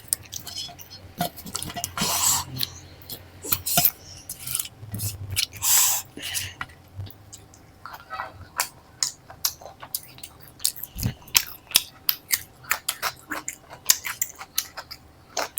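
Close-miked chewing and wet mouth clicks of someone eating paneer curry with flaky lachha paratha, irregular and continuous. Two longer breathy swells come about two and six seconds in.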